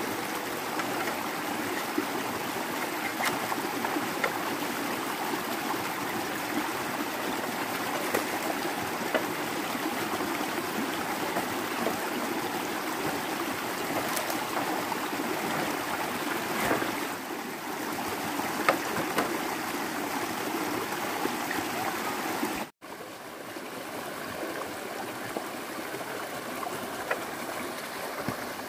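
Small stream running steadily over a muddy bed, with scattered light knocks from bamboo poles being handled. About three-quarters of the way through the sound cuts out for an instant and comes back softer.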